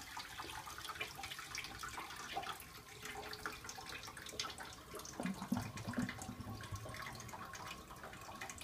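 Gravity-fed rainwater toilet refilling after a flush: water swirling in the bowl and running steadily into the tank through a float valve.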